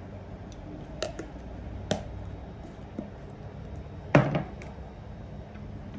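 Spoon, scoop and tin tapping against a plastic jug while formula milk is mixed: three light taps about a second apart, then one louder knock a little after four seconds in.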